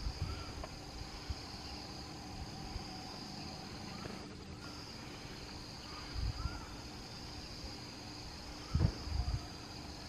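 Steady high-pitched insect chorus of crickets droning, with a few faint short whistled bird notes. Low thumps come about six seconds in and again near nine seconds.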